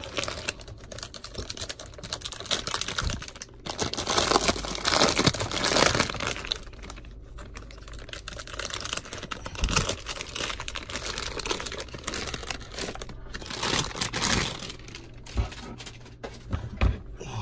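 Clear plastic wrap crinkling and tearing as it is peeled off a keyboard, in irregular bursts of rustling that are loudest about four to six seconds in and again near fourteen seconds.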